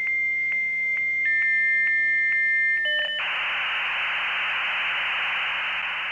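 Dial-up modem handshake: a steady high answer tone with a click about twice a second, joined by a second, slightly lower tone. About three seconds in a short chord of tones gives way to harsh, even hiss that runs for about three seconds before tones sound again.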